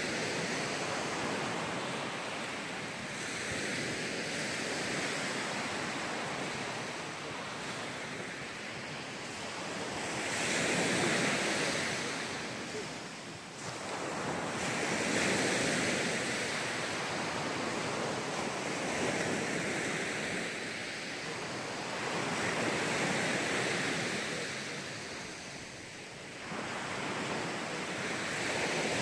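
Small sea waves breaking on a sandy beach, the wash rising and falling in slow swells every few seconds.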